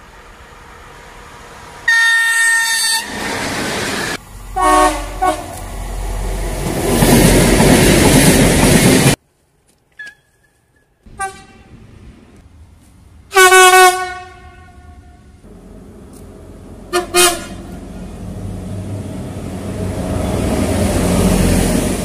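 Electric locomotive horns blown at freight trains passing: a chord of several tones about 2 s in, then two short notes and the swelling rumble of the train. After a break, a red ÖBB locomotive gives a long loud blast, then a short toot, as the rumble of its wagons grows.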